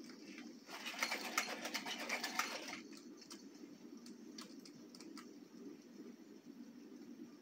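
Sony aibo robot dogs' joint motors moving, giving a rapid rattle of mechanical clicks that starts just under a second in and lasts about two seconds. A few single clicks follow, over a steady low hum.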